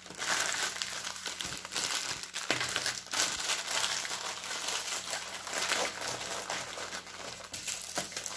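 Crinkling and rustling of a diamond-painting canvas's clear plastic film and plastic bags of rhinestones as they are handled and rolled up, a steady crackle of many small clicks.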